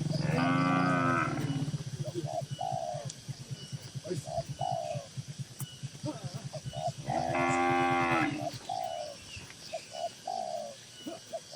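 Cattle mooing: two long, loud moos, one about a second in and another about seven seconds in. Short repeated coos of doves fill the gaps between them.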